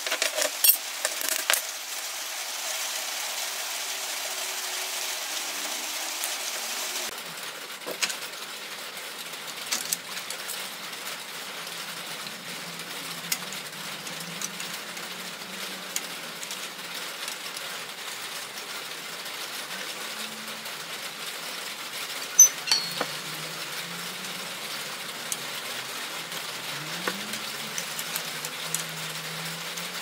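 Hand work on aluminium sheet: tin snips clipping the sheet in a few sharp snaps at the start, then scattered taps and knocks of the sheet being handled and set in a bending brake, one knock louder about 22 seconds in. A steady hiss runs underneath, louder for the first seven seconds.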